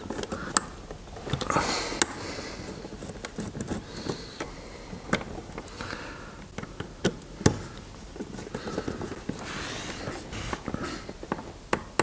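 Scattered small clicks and taps with light rustling: a screwdriver and wires being worked into the terminals of a motor starter box.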